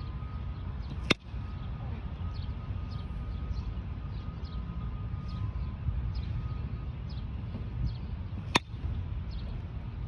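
A baseball bat hitting pitched balls twice, each a single sharp crack: one about a second in, the other near the end.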